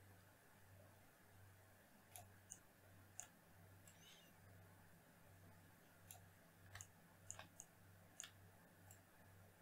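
Near silence: a few faint computer-mouse clicks, bunched around two to three seconds in and again in the second half, over a low hum that pulses about twice a second.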